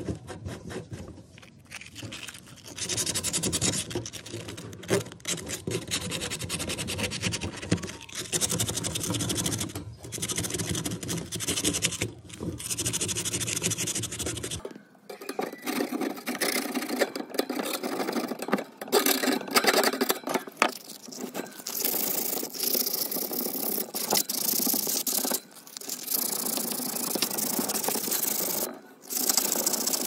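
Abrasive pad scrubbing rust off a metal wire fan guard, rough scraping in repeated back-and-forth strokes. About halfway through, a low background hum cuts out while the scraping goes on.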